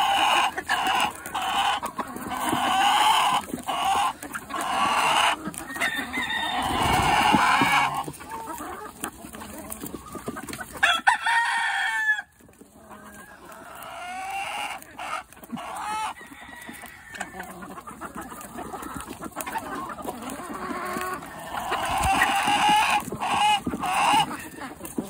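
A flock of chickens clucking and squawking as they crowd in to peck at an apple held out by hand, with sharp taps of beaks striking the fruit among the calls. The calls thin out and go quieter about halfway through, then build again near the end.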